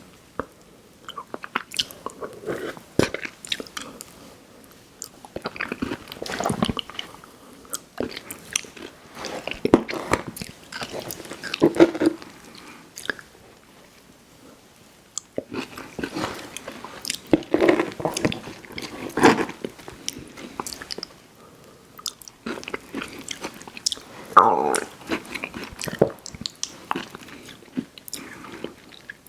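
Close-miked chewing and biting of candy, with many sharp mouth clicks. It comes in bursts, with a couple of short pauses between them.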